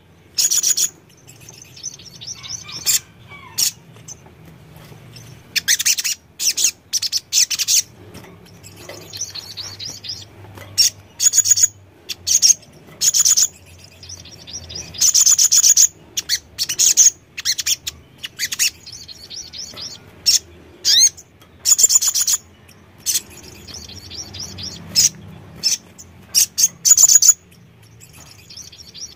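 Male sogon sunbird singing: short, loud bursts of rapid, high-pitched twittering, repeated again and again with brief pauses between them.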